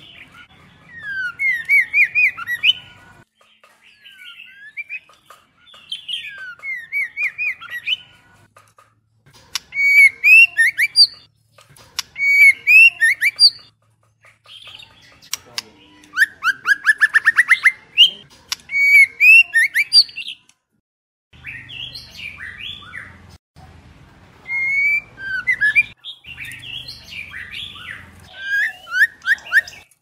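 White-rumped shama calling in short phrases of whistles and chirps, broken by brief pauses, with a fast run of repeated rising notes about halfway through.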